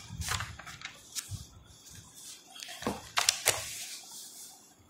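Paper textbook pages being turned and handled: short dry rustles and scrapes, with the sharpest cluster about three seconds in.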